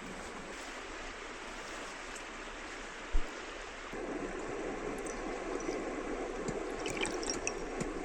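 River water flowing steadily, with a single thump about three seconds in. From about four seconds in the water gets fuller and louder, with small clicks over it.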